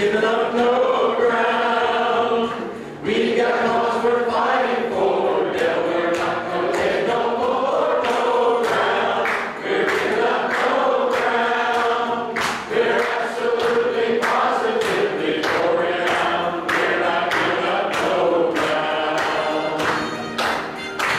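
A congregation singing a song together. About halfway through a steady beat of sharp strokes joins the singing.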